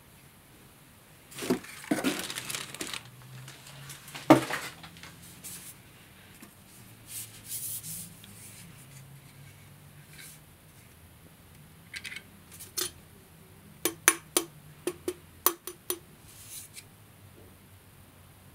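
Unboxing handling noise: cardboard and plastic wrap rustling as a Dyson V7 vacuum's extension wand is moved about in its box. A sharp knock comes about four seconds in, and a quick run of small clicks and taps comes near the end.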